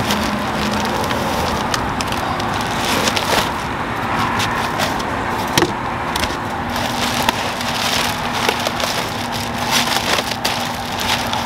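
Cardboard box and plastic wrapping being handled: irregular crinkling and crackling with scattered sharp clicks as a plastic-wrapped battery pack is pulled from its shipping box and the bag is opened.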